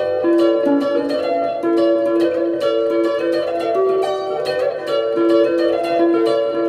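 Clean electric guitar playing a flowing melodic line of quickly picked single notes, each note sharply attacked and ringing.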